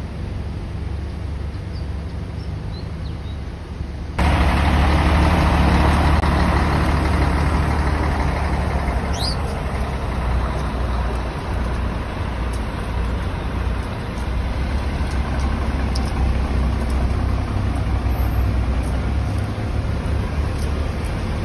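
Motor vehicle running, a steady low rumble with road or wind noise over it; it turns abruptly louder and fuller about four seconds in.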